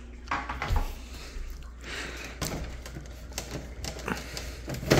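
Irregular plastic clicks and knocks from an Aerogarden Bounty's light pole and panel being handled, with a louder knock near the end.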